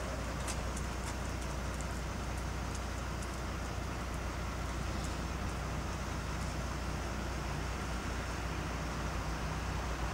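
Steady low rumble of a stationary truck's engine idling, with a few faint high ticks in the first half.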